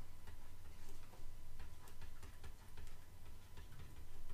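Stylus tapping and scratching on a drawing tablet while words are handwritten: light, irregularly spaced clicks over a low steady hum.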